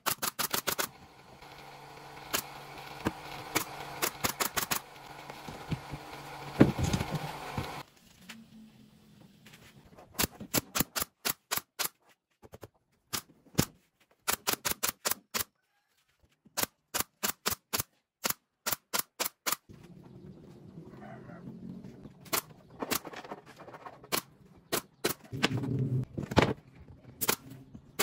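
Nail gun firing nails into the edges of plywood panels, in quick runs of several sharp shots, about three a second, with short pauses between runs.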